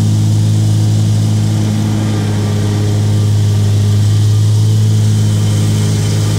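Zero-turn lawn mower's engine running steadily while mowing, a constant low drone that does not rise or fall.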